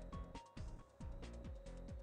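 Background electronic music with a steady beat of kick drums and hi-hats.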